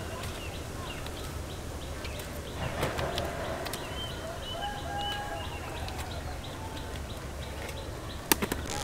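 Outdoor ambience: birds chirping in short, repeated calls over a steady low rumble, with a couple of sharp clicks near the end.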